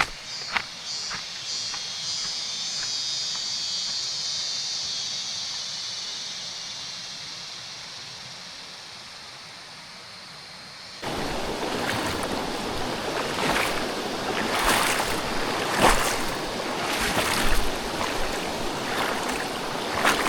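Outdoor jungle ambience with no speech: a high, steady hiss that swells and fades. About eleven seconds in it changes abruptly to a louder, rushing noise with scattered crackles.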